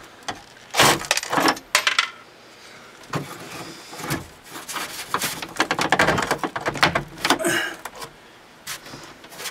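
Metal hand tools and loose hardware clinking and clattering, a series of irregular sharp clicks, while fasteners are worked loose on a truck's interior.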